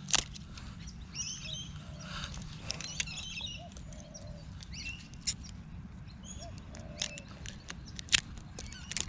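Birds chirping, with a few sharp clicks and taps as a fishing rod and reel are handled and fitted up, over a steady low rumble.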